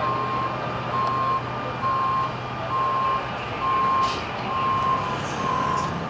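A truck's back-up alarm beeping steadily while reversing, seven even beeps about one a second, over the low hum of an engine running.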